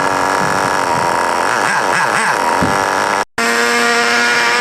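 HSP Camper 1/8 buggy's SH .18 nitro engine running steadily during break-in, just after being restarted on the glow igniter. The sound breaks off briefly about three seconds in, then the engine runs on at a steady pitch.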